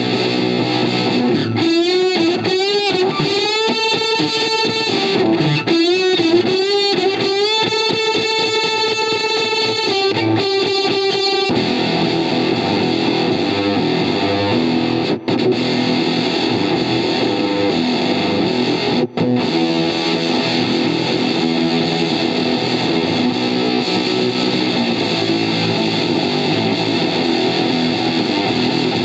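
Electric guitar played through a reproduction Fender Blender fuzz and octave pedal: distorted single notes bent and wavering in pitch for about the first ten seconds, then dense fuzzy strummed chords, with two momentary dropouts in the sound.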